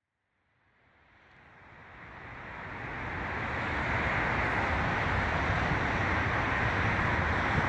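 Steady road-traffic noise mixed with wind rumbling on the microphone, fading in over the first three seconds or so, then holding even.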